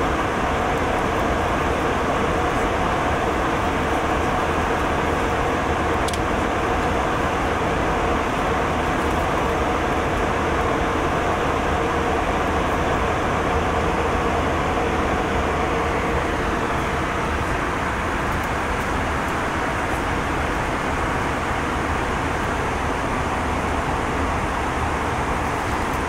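Steady cabin noise of a jet airliner at cruise: engine and airflow noise as an even rush with a faint steady hum under it, and a small tick about six seconds in.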